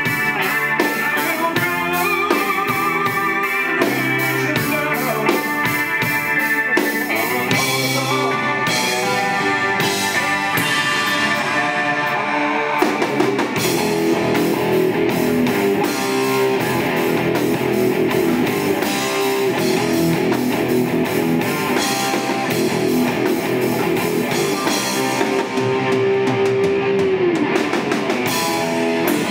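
Live rock band playing, with electric guitars over a drum kit. A long note is held from about halfway through and ends near the close.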